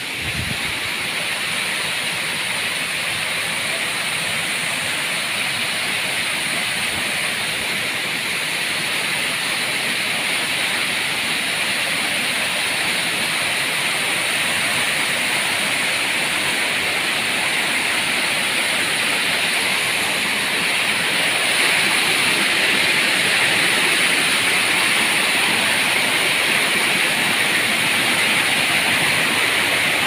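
Steady rush of a tiered waterfall cascading over rock into a pool, growing a little louder past the middle.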